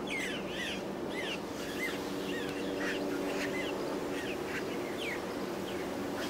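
Birds chirping, many short rising-and-falling calls several a second, over a faint steady low hum.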